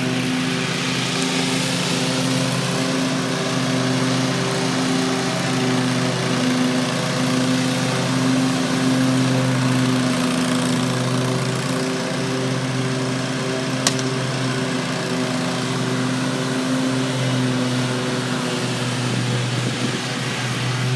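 Toro Grandstand stand-on mower's Kohler Command Pro ECV740 EFI V-twin engine running steadily while mowing. One sharp click comes about fourteen seconds in.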